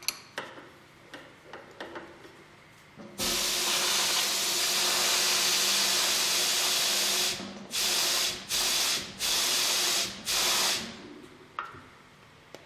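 A few light clinks of metal tools being handled, then a pressurized jet hissing loudly: one long blast of about four seconds followed by four short blasts.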